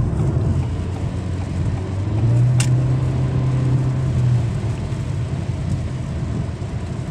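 A car driving on a wet road, heard from inside the cabin: a steady low drone of engine and road noise that swells for a couple of seconds in the middle. A single short click comes about two and a half seconds in.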